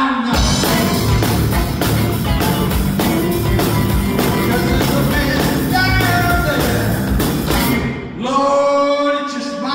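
Live blues-rock trio of electric guitar, electric bass and drum kit playing a song. The full band runs with steady drum hits, then eases briefly about eight seconds in before held notes come in.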